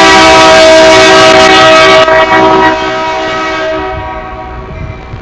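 Locomotive air horn of a Union Pacific freight train, several notes sounding together in one long, very loud blast that drops off about two seconds in and fades away by about four seconds in.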